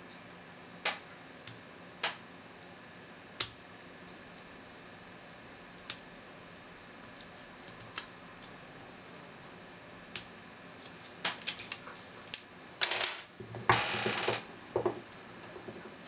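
Lock picks working inside a five-pin Master No. 160 brass padlock: sparse sharp clicks every second or two as the pins are raised. Near the end comes a denser run of louder metallic clacks and rattles as the picked lock comes open and is handled.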